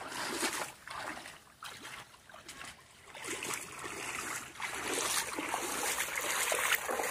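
Feet wading and splashing through shallow creek water, growing louder and more continuous from about three seconds in.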